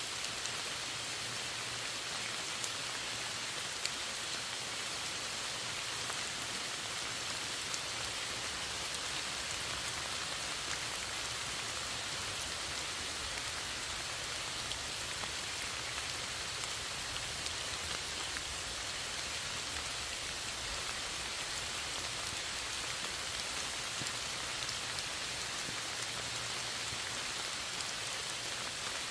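Steady rain falling, an even hiss with scattered drop ticks and no change in intensity.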